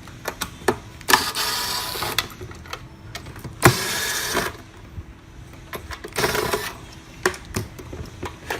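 Screwdriver turning the front-panel screws of an automatic tape dispenser to loosen them: three scraping stretches of about a second each, with small clicks and knocks of the tool and panel between them.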